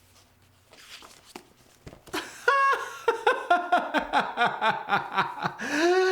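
A man's voice laughing in a run of quick ha-ha pulses, about four a second, ending in a long held squeal near the end.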